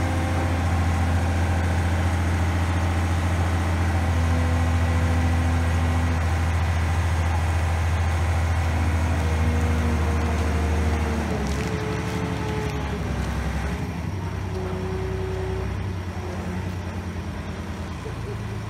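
Engine of a boat travel lift running steadily with a loud low drone while it lowers a sailboat into the water. About eleven seconds in, the deep drone drops away and the machine runs on more lightly.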